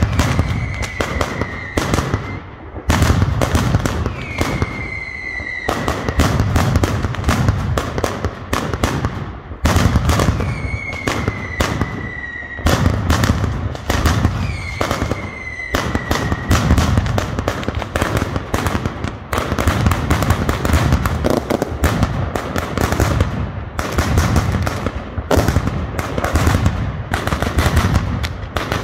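Mascletà: a rapid, continuous barrage of ground-level firecracker bangs. High, slightly falling whistles from whistling fireworks cut through it four times in the first half.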